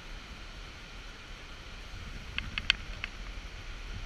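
Low, steady wind rumble on the action camera's microphone, with a quick run of four light clicks about two and a half seconds in.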